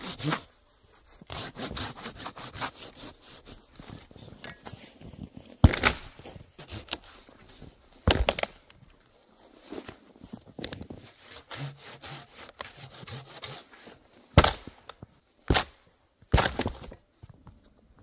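Folding hand saw cutting through a snow-covered log in quick rhythmic strokes for the first few seconds, then a handful of loud sharp knocks and thuds as the cut logs are handled.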